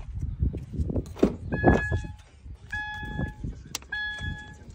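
Rumbling handling noise and knocks for the first two seconds. Then a Subaru's electronic warning chime starts, with the door open, and repeats about once every 1.2 seconds in short steady dings.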